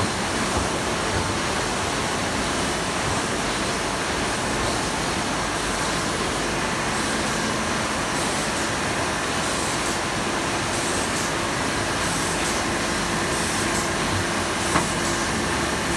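Paper folding machine running in a workshop: a steady, even mechanical din, with a single click near the end.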